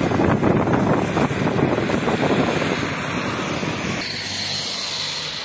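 Wind buffeting the microphone, strongest in the first half, while a heavy truck drives past on the wet road; a steady hiss begins about four seconds in as it passes close.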